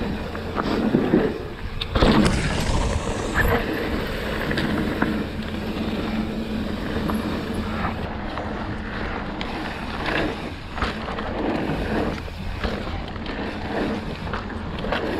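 Mountain bike rolling fast down a dirt and gravel trail: knobby tyres crunching over stones and the bike rattling over bumps, with a couple of hard knocks about one and two seconds in.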